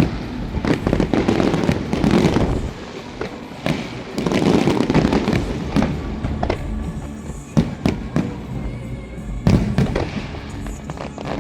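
Aerial fireworks bursting in rapid succession: sharp bangs and crackles over a rolling low rumble, with music playing underneath.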